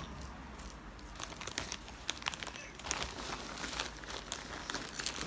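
Crinkling and scattered crackles of a candy wrapper being handled close to the microphone while a piece of sour-powder candy is eaten.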